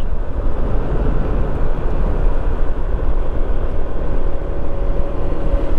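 On-board riding noise from a 2015 Honda PCX150 scooter under way: a steady low wind rumble on the microphone with the scooter's single-cylinder engine and road noise underneath. A faint steady hum joins about four seconds in.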